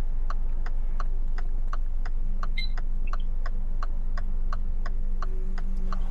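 Hyundai's turn-signal indicator clicking at an even pace, about three ticks a second, over the steady low hum of the engine idling.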